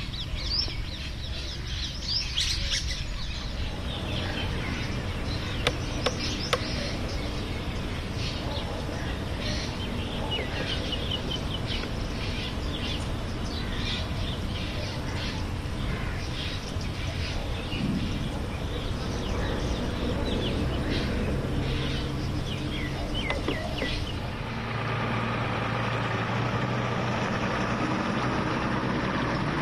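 Small birds chirping repeatedly over a low outdoor rumble. About 24 seconds in, this gives way to a truck engine running steadily.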